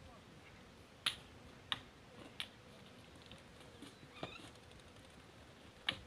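A few sharp, short clicks at irregular intervals over a faint background: the loudest about a second in and just before the end, with a faint short chirp-like sound a little past four seconds.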